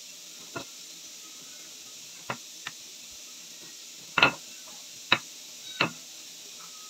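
Wooden rolling pin rolling out dough, knocking sharply against the counter six times at uneven intervals over a steady hiss; the loudest knock comes about four seconds in.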